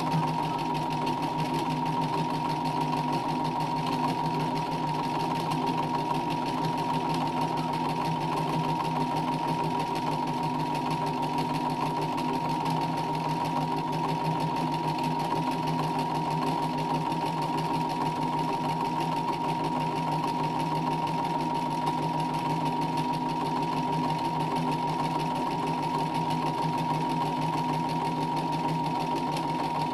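Domestic sewing machine stitching free-motion embroidery, running steadily without a break: a constant motor hum with a steady high tone under fast, even needle strokes.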